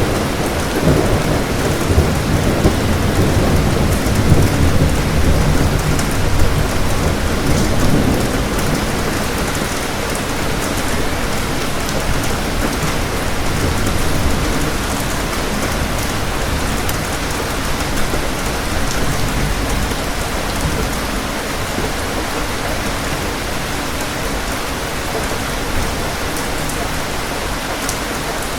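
Steady rain falling, with a long low roll of thunder over the first several seconds that dies away about a third of the way through, leaving the rain alone.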